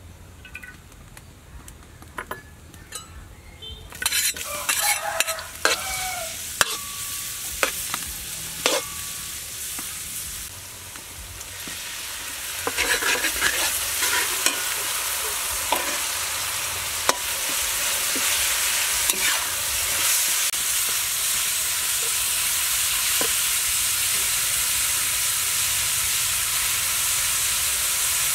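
Food stir-frying in hot oil in a steel wok: sizzling, with a metal spatula scraping and clinking against the pan. The sizzle starts about four seconds in and grows louder and steadier through the second half.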